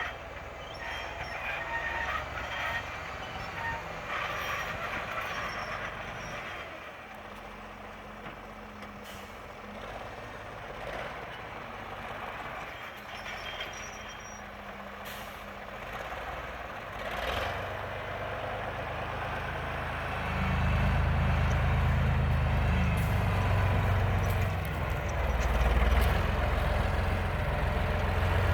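Motor vehicle engine running on a drive, with road noise. It grows louder and heavier about two-thirds of the way through.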